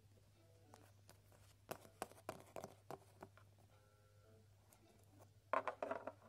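Light clicks and taps of small plastic toy figurines being hopped along and handled on a tabletop, in a cluster about two seconds in and again near the end, with a quiet room between.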